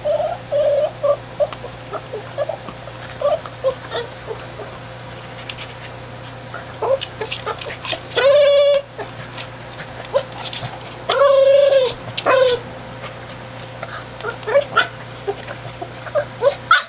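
Boston Terrier whimpering in many short, high squeaks while working at a ball toy he can't get into, with two longer, louder whines about eight and eleven seconds in.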